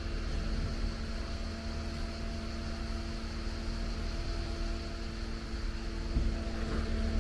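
Steady machine hum: a few constant tones over a low rumble.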